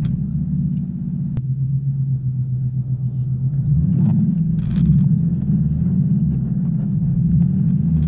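A car's V6 engine and exhaust droning steadily while driving, heard from inside the cabin. The engine note rises briefly about four seconds in, then settles.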